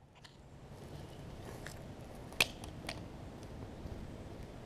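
Quiet outdoor background with light footsteps on an asphalt driveway and a few sharp clicks, the loudest about two and a half seconds in.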